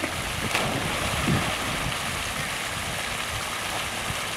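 A chocolate Labrador splashes into lake water about half a second in after leaping off a dock. A steady rushing hiss of water and wind runs under it.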